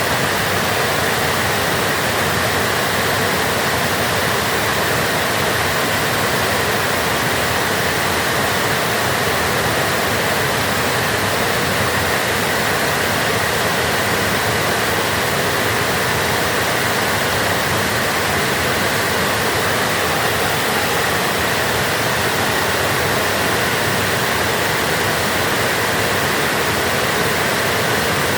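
Water flowing out of a dam, a loud, steady, unbroken rush of falling water that does not change.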